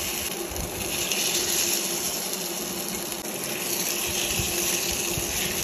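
Shrimp-fritter batter sizzling steadily in hot oil in a small frying pan, a dense even hiss.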